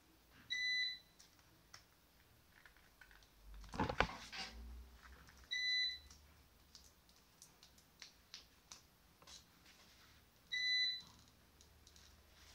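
Three short, identical electronic beeps, evenly spaced about five seconds apart, over light clicking from handling small parts. A brief louder clatter comes about four seconds in.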